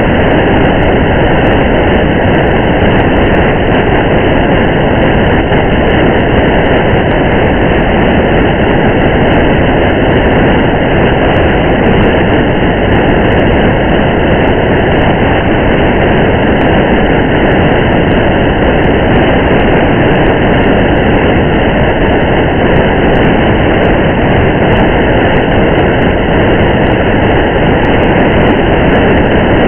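Steady noise of a car driving through rain: an even rush of road and rain with no change throughout, and faint scattered ticks above it.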